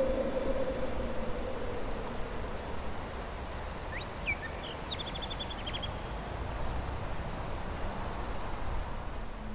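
Forest ambience: insects chirping in a steady, rapid high pulse, with a short bird call about four to five seconds in. A low held tone fades out over the first two seconds.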